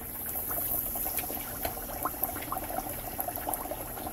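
Battered bass fillets deep-frying in hot oil: a steady sizzle and bubbling, dotted with small scattered pops and crackles.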